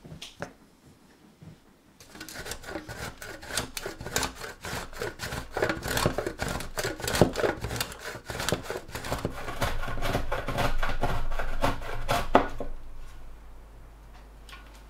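A block of parmesan cheese grated on a stainless steel box grater standing on a wooden cutting board: a quick, even run of scraping strokes that starts about two seconds in and stops near the end.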